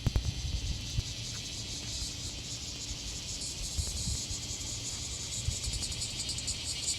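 A dense, steady chorus of chirping insects, like crickets, with fast fine pulsing in the high range. Underneath is a low rumble, with a few knocks about a second in.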